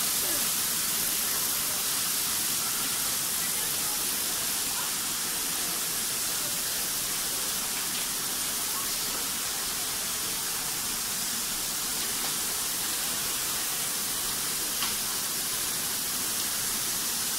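Steady hissing noise of a sewing-machine factory floor, with a few faint clicks now and then.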